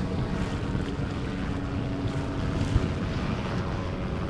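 Wind rumbling on the microphone over choppy sea water, with a faint steady drone of boat engines underneath and one brief low bump a little before three seconds in.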